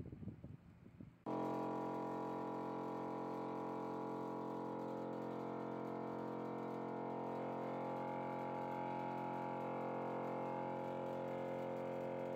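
A steady buzzing hum with many overtones switches on abruptly about a second in and holds unchanged: the vibration source driving the wooden block and board at a resonant frequency to cut the friction as the block is pulled. Before it starts there is some faint low knocking.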